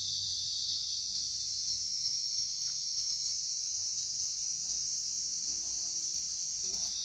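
Insects droning steadily and high-pitched in the forest, an unbroken chorus with no pauses.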